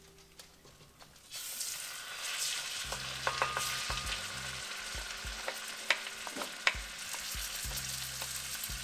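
Ginger garlic paste sizzling in hot melted butter in a kadai. The sizzle starts abruptly about a second in as the paste goes into the pan, with a wooden spoon stirring and a few knocks of the spoon against the pan.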